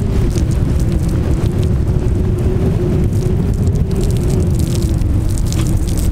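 Strong wind buffeting the microphone in a steady low rumble, with faint splashing from water falling out of an outdoor beach shower head.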